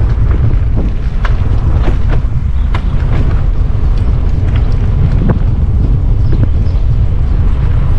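Wind buffeting the microphone of a camera riding on a Stromer ST2 speed pedelec, a loud, steady low rumble with a scattering of short sharp clicks and knocks.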